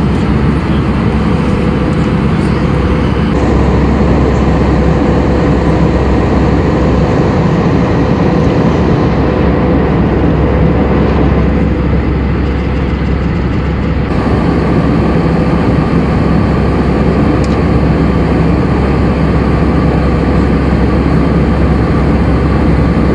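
Steady cabin noise of an Airbus A319: a loud, even engine rumble with a constant hum. About two-thirds of the way through, a higher hum joins it.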